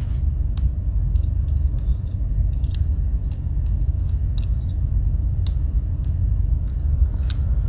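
A steady low rumble runs throughout. Over it come faint, scattered clicks and taps of a Victorinox Swiss Army knife being handled on a tabletop, with a slightly sharper click near the end.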